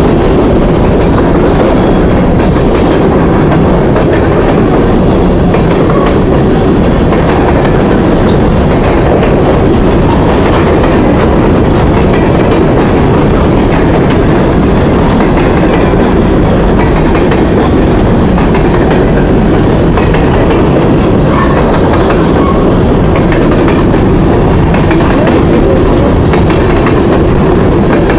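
CSX covered hopper cars of a long grain train rolling past close by: a loud, steady noise of steel wheels running on the rails, with no break.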